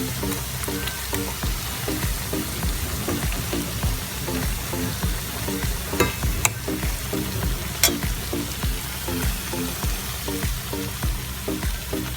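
Bananas and melted sugar frying in hot oil in a pan, a steady sizzle, over a low flame. A few sharp clicks sound around six and eight seconds in.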